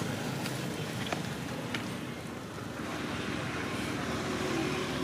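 Steady outdoor background noise, with a few faint clicks in the first two seconds.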